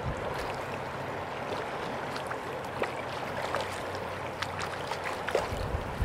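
River water flowing, a steady rush with scattered small ticks and splashes.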